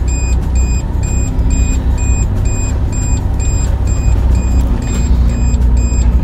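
Suzuki Jimny JA22W's 660 cc three-cylinder turbo engine running as the car pulls away and turns, heard from inside the cabin as a steady low rumble. A regular electronic beep repeats about twice a second throughout.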